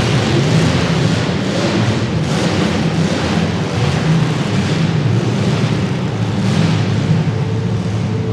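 Several compact demolition derby cars' engines revving hard together, a dense, steady engine noise with brief swells.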